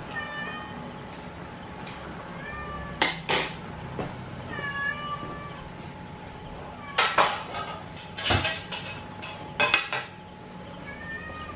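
A cat meowing, four short meows spread through, with a few sharp clatters of metal kitchenware between them.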